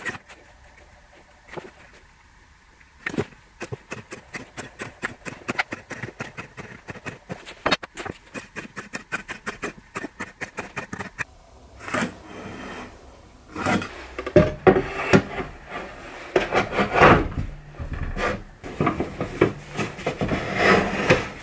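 Pencil scratching across pine boards in quick, even strokes, about five a second, as lines are marked against a metal square. Later come louder, irregular knocks and scraping of wood and tools being handled.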